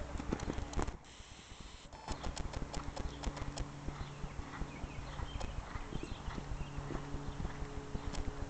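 Hoofbeats of a horse cantering under saddle on sand-and-dirt arena footing, with uneven clopping that dips quieter briefly about a second in. A steady low hum runs underneath from about two seconds in.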